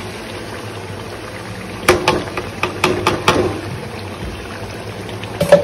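Masala frying in oil in a steel pot, a steady sizzle, as a thick ground masala paste is tipped in. About two seconds in come five or six sharp metal knocks on the pot, with two more near the end, as the paste is knocked loose from its container.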